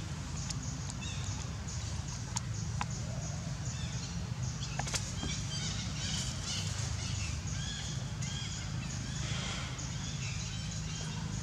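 Outdoor forest ambience: a steady low rumble, a few sharp clicks in the first half, and short high chirps from about six seconds in.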